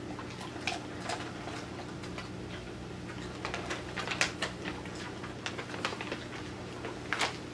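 Plastic dog-treat bag crinkling and crackling in irregular short bursts as it is handled and pulled open, loudest about four seconds in and near the end. Under it a steady low hum from a dishwasher running.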